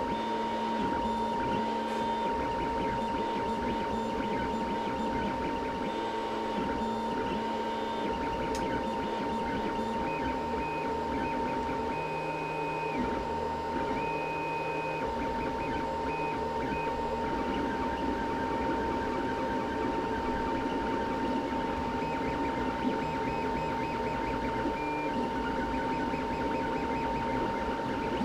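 3D printer printing, its stepper motors running in short pitched tones that stop, start and change pitch as the head moves, over a steady high whine.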